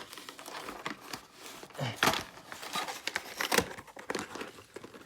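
A VHS tape and its case being handled: rustling with several sharp plastic clicks and knocks, the loudest about two and three and a half seconds in.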